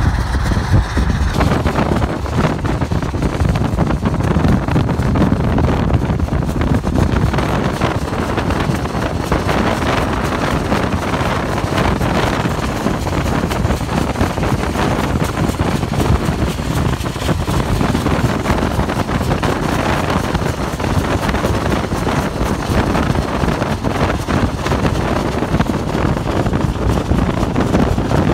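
Steady wind rush on the microphone and road noise from a car driving at speed, pacing Union Pacific 844, a 4-8-4 steam locomotive, running alongside at speed.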